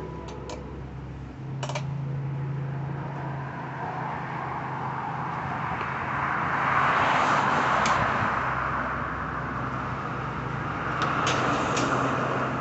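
Road traffic passing, its noise swelling to a peak in the middle and again near the end, over a steady low hum. A few sharp clicks near the start and near the end come from the mower's handlebar and control cable being handled.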